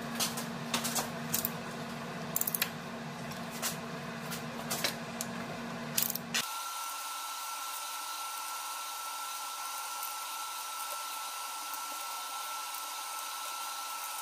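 Metal clicks and clacks at uneven intervals from a long-handled wrench and socket working the cylinder head bolts over a steady hum. About six seconds in, the sound changes suddenly to a steady high-pitched tone over a hiss.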